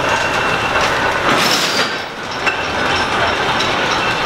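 Selfaktor (self-acting spinning mule) running under electric drive, a loud, steady mechanical clatter, with a brief hiss about a second and a half in. The spun yarn is being wound onto the spindles.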